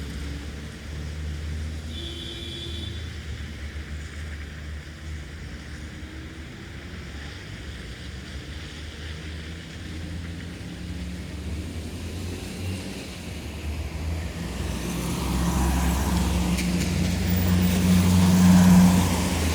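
Town traffic on a wet road: a low engine rumble, then a vehicle approaching with tyres hissing on the wet surface. It grows louder from about three-quarters of the way in and passes, at its loudest, just before the end.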